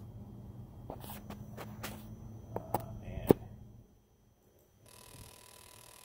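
A phone being set down on the engine gives a few knocks and taps over a low hum, which stops about four seconds in. About a second later a faint, steady electric buzzing starts: the truck's number two fuel injector being pulsed by a scan-tool injector balance test. The injector fires electrically, but it is plugged and lets no fuel through.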